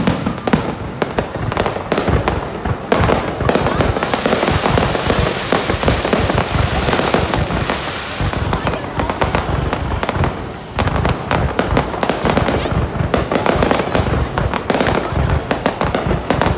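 Fireworks display: a dense, continuous barrage of bangs and crackles, with a brief lull about ten seconds in.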